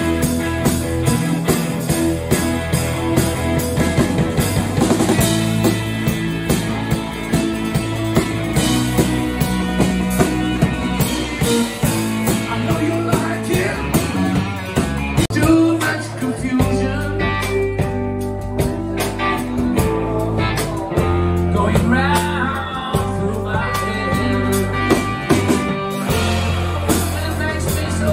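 Live rock band playing: electric guitar, electric bass and drum kit, with singing.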